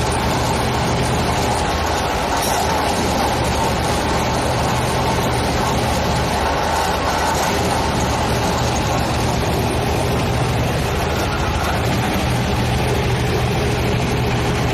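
Heavy diesel engine of a piling rig running steadily, a constant deep hum with no distinct hammer blows.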